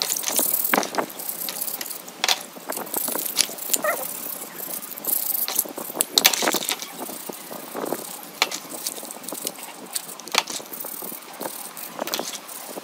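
Stiff-bristled hand brush scrubbing a plastic security-camera housing part in a basin of soapy water: irregular scratching and sloshing, with sharp clicks of plastic knocking.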